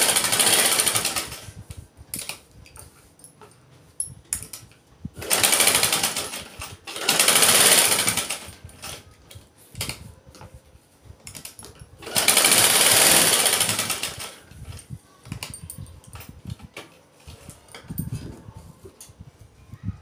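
Sewing machine stitching in four runs of about two seconds each, with short pauses and small clicks between the runs. It is sewing down the folded edges of a cut-out sleeve design.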